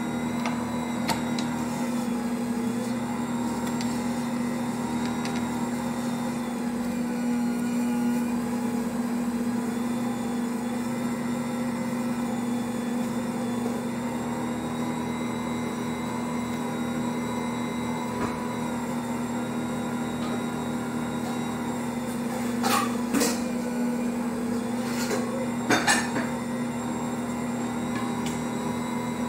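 Ankarsrum mixer running with a steady motor hum as its turning bowl kneads dough against the dough hook and scraper. A few brief knocks come about two-thirds of the way through and again a little later.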